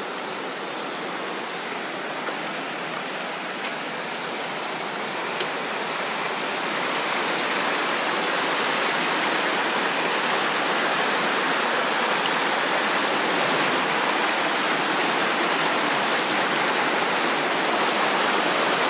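Shallow rocky mountain stream rushing and tumbling over stones in a steady wash, growing a little louder over the first several seconds.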